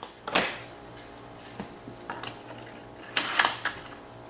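Scattered sharp clicks and clatter of plastic toy trains and playset pieces being handled, with the loudest knock about half a second in and a quick cluster near the end, over a faint steady hum.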